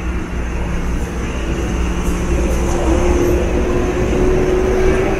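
A motor vehicle's engine running, a steady hum over a low rumble that grows louder and rises slightly in pitch from about a second and a half in.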